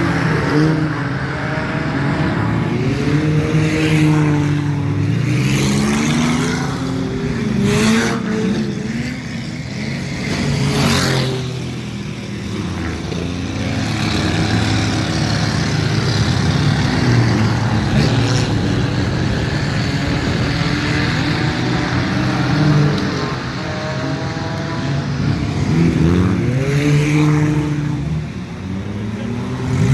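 Several four-cylinder enduro race cars running laps on a dirt oval. Their engine notes overlap, rising as they accelerate and falling off into the turns as the cars pass by.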